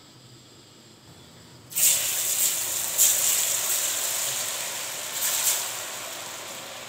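Batter-coated potato chips going into hot oil for deep-frying: a loud sizzle starts suddenly about two seconds in, flares up again twice, then slowly eases off.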